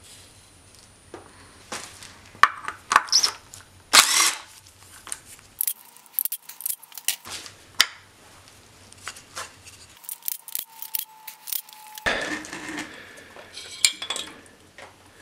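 Hand tools clinking and clicking against a BMW M54 engine as its thermostat housing and water pump are unbolted: sharp metal knocks and clinks in short bursts, busiest in the first few seconds, with a stretch of scraping handling near the end.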